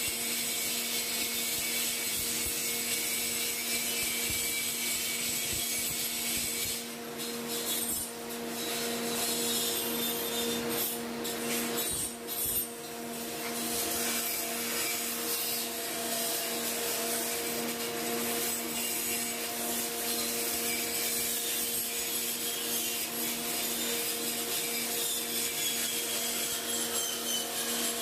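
Power grinder running against metal: a steady motor hum under a continuous rasping grind, easing off briefly twice in the first half.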